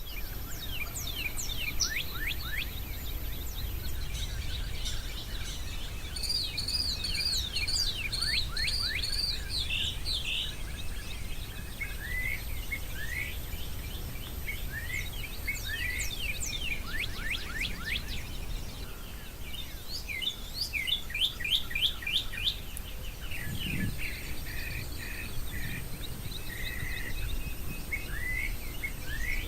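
Several wild birds singing and calling over one another, with quick chirps, sweeping notes and short trills. A steady low rumble runs underneath.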